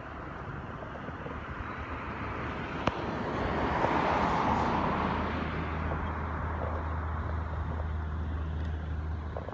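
Diesel locomotive engine running with a low, steady drone that sets in about halfway through. A broad rushing noise swells and fades just before it. A single sharp click is heard about three seconds in.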